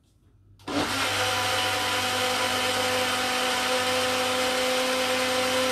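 Electric blender running steadily at one pitch, blitzing pancake batter of oat flour, eggs, almond milk, cacao and protein powder; it starts up after a brief quiet moment under a second in.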